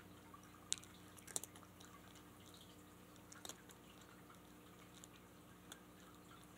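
Cat eating from a bowl: faint, scattered clicks and crunches of chewing, the loudest under a second in and about a second and a half in, over a steady low hum.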